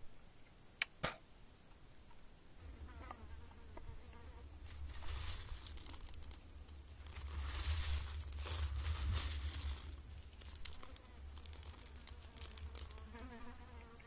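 A hand rummaging through small dark palm fruits and their dry stems in a coiled basket: a rustling crackle that swells in the middle and is loudest about eight seconds in. A low steady hum runs underneath, and two sharp clicks come about a second in.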